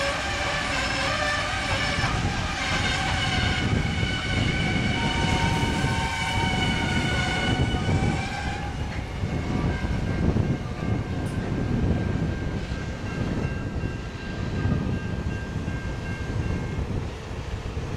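NSW C38 class Pacific steam locomotive 3801 under steam, its whistle blowing a long steady note that stops about eight and a half seconds in. A fainter high tone follows, over the locomotive's rhythmic exhaust beats and the rumble of the train.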